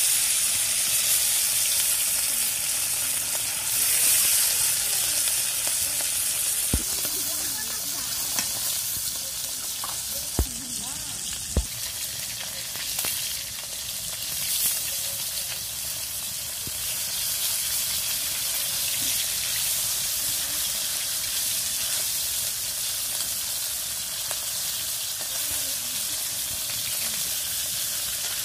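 Nola fish sizzling steadily as they fry in hot oil in a karahi, loudest in the first few seconds just after the fish go in. A few sharp clicks come about seven, ten and twelve seconds in.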